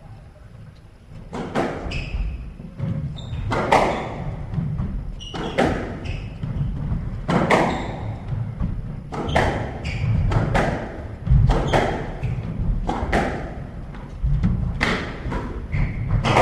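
A squash rally: the ball cracking off the rackets and smacking into the court walls every second or two, starting about a second and a half in, with shoes squeaking on the wooden court floor between the hits.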